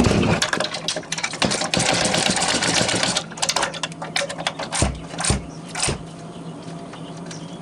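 Socket ratchet clicking rapidly as the pressure washer pump's mounting bolts are run down, then slower separate clicks and a few knocks around five seconds in.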